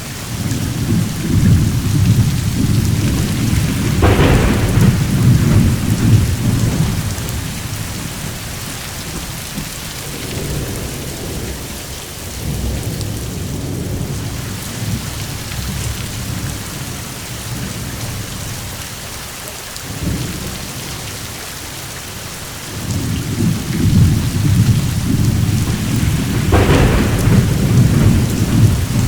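Steady heavy rain with rolling thunder: long deep rumbles swell and fade several times, with a sharper crack of thunder about four seconds in and another near the end.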